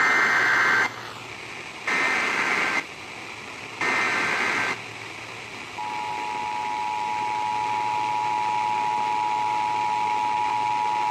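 Emergency Alert System SAME data bursts: three buzzy digital bursts about a second each, a second apart. They are followed, about six seconds in, by the steady two-tone EAS attention signal, which holds to the end. Both sound over a background hiss, as heard off the radio broadcast.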